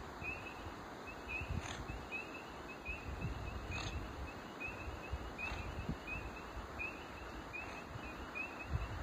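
Chorus of spring peepers calling steadily from the swamp, short rising peeps at about three a second, with a low rumble of wind or handling on the phone's microphone.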